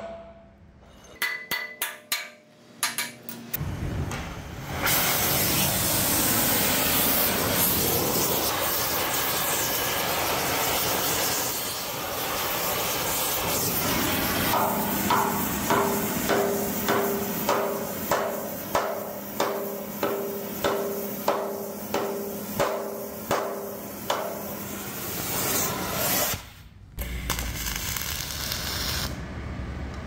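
Air carbon arc gouging on the steel of a bulldozer blade: a loud, steady hiss and crackle of the arc and air jet blowing molten metal out of the cut. In the second half comes a run of about fifteen evenly spaced ringing metallic knocks, about one and a half a second.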